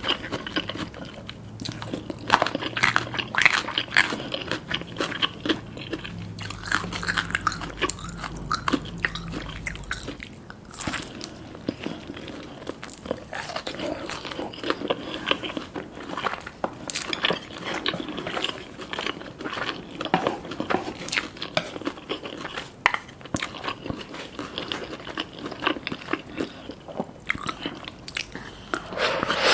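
Close-up eating sounds: crunchy bites and chewing, with irregular crackles, typical of crispy fried chicken being eaten.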